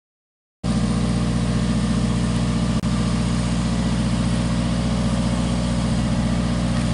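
Boom lift's engine running steadily at idle, a low, even drone that cuts in suddenly about half a second in and briefly drops out near three seconds.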